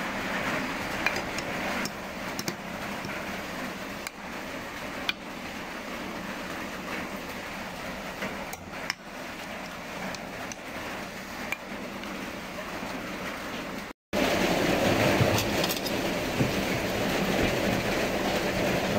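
Metal ladle and spoon clinking now and then against a glass bowl and a ceramic pot as noodle soup is served, over a steady hiss of rain. The rain hiss gets louder near the end.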